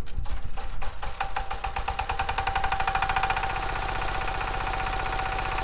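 Single-cylinder diesel engine of a two-wheel walking tractor running with a fast, even knocking beat, picking up speed over the first couple of seconds and then running steadily.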